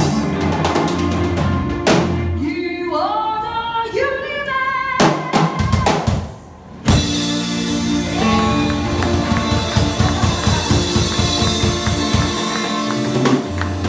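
Live band playing with a drum kit and other instruments. The music drops out briefly about six seconds in, then the full band comes back in on a sudden loud hit.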